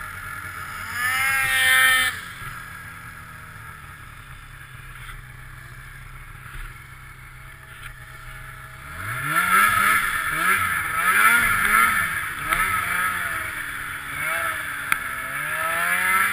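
Snowmobile engine revving up briefly, then running quietly and steadily for several seconds, then blipped up and down about half a dozen times before climbing in pitch again near the end.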